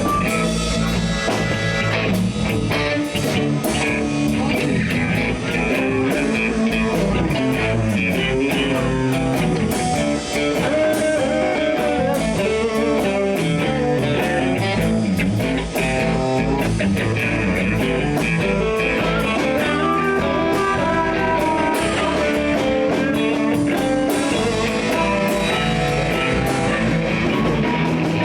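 Live blues band playing an instrumental break with no singing: electric guitar, bass and drum kit, with a harmonica taking a solo.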